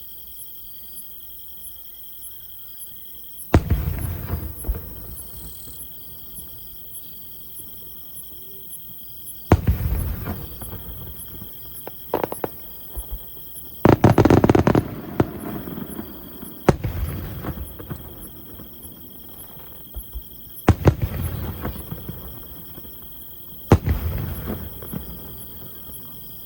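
Aerial fireworks shells bursting overhead: about seven separate booms spread over the stretch, each trailing off in crackling, with the loudest a little past the middle. Insects chirp steadily in the gaps between bursts.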